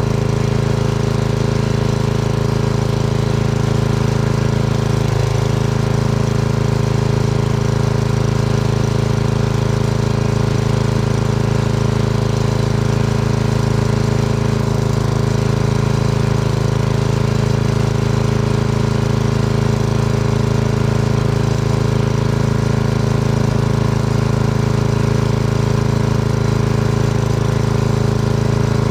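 Lawnmower's small gasoline engine running steadily at an even speed.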